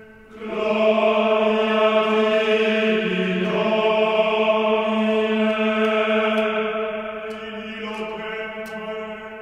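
Voices chanting a long held note in unison like a choral drone. They come in sharply about half a second in, shift pitch slightly around three seconds, and ease off towards the end. A few faint clicks sound in the second half.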